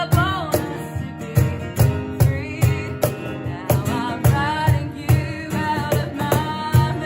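A woman singing a folky, country-tinged song with guitar accompaniment over a steady beat.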